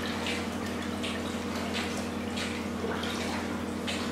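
Pool water splashing and lapping as a dog swims, over a steady low hum from the pool's pump.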